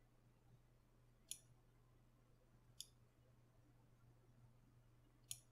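Near silence broken by three faint computer mouse clicks, a second and a half or more apart, over a faint low hum.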